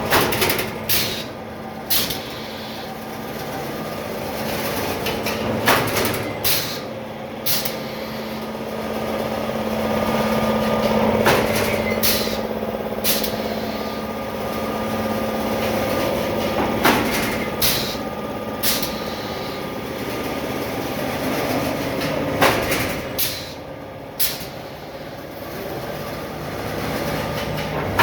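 Automatic chain-link fence weaving machine running: a steady motor hum with sharp metallic clacks in groups of three, just under a second apart, the group coming round about every five and a half seconds.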